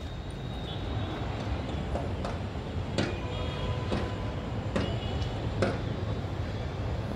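Steady low rumble of outdoor city noise, traffic and wind, with a handful of sharp knocks starting about two seconds in.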